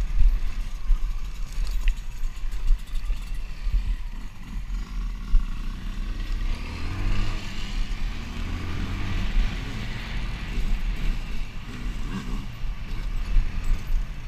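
Dirt bike engine running under way on a trail, the revs climbing and falling several times in the middle as the rider accelerates and shifts. Wind buffets the helmet-mounted microphone throughout.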